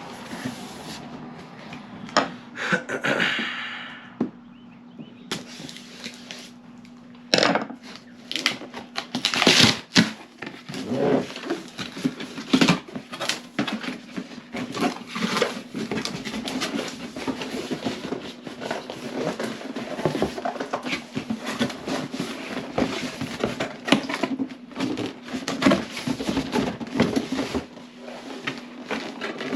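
Packaging rustling and crinkling with many small clicks and knocks as climbing sticks are unpacked and handled, over a faint steady hum.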